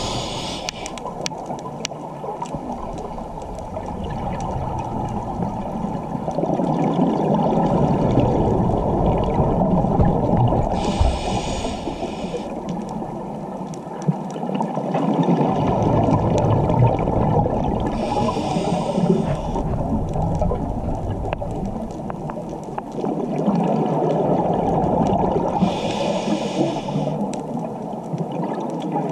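Scuba diver's regulator breathing underwater: four short hissing inhales, each followed by a long low bubbling rush of exhaled air.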